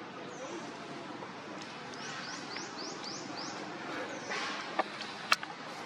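A run of about six quick, high-pitched rising chirps from a small animal, followed near the end by two sharp clicks.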